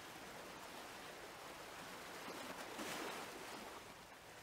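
Faint water lapping with gentle waves, swelling slightly about three seconds in.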